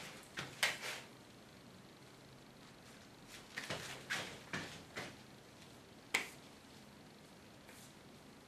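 Hands working styling product through short hair, giving scattered soft smacks and slaps in small clusters, the loudest a single sharp snap about six seconds in.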